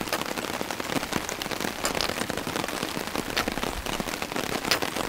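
Heavy rain falling on a tarp overhead: a dense scatter of sharp drop impacts over a steady hiss.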